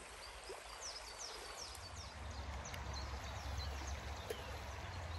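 Small stream flowing steadily, with a bird singing a quick run of high, down-slurred notes about a second in. A low rumble comes in about two seconds in.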